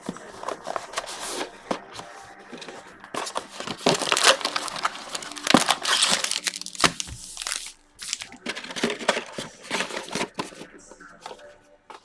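Plastic wrapping on a trading-card box crinkling and tearing as hands strip it off and open the box. It comes as a string of irregular crackles, loudest in the middle, with a short pause about eight seconds in.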